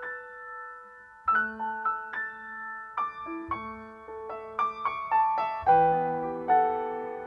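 Piano music: notes and chords struck one after another, each ringing and fading, getting fuller and lower toward the end.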